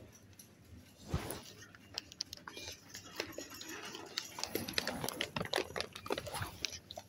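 A bag of coffee beans being gripped and handled on a shop shelf, its packaging crinkling and rustling in a dense run of small crackles, after a single low thump about a second in.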